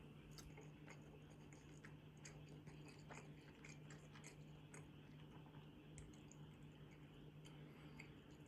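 Faint scattered clicks and taps, like small packaged items being handled, over a low steady hum.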